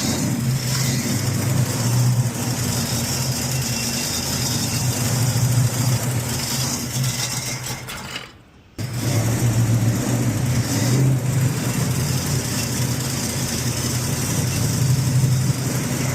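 Classic car's engine idling steadily, just after being started, with a brief full drop-out about eight seconds in before it runs on.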